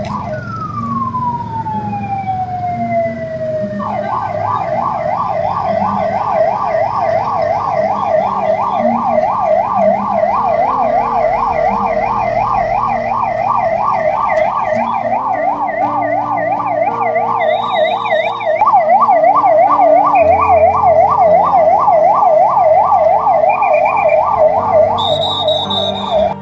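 Ambulance siren: a fast warble at first, then a long falling glide for about four seconds, then a rapid yelp rising and falling several times a second that runs on and grows louder about two-thirds of the way through.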